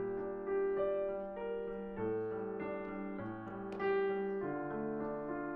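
Background piano music: slow, held notes and chords that change about every half second to a second.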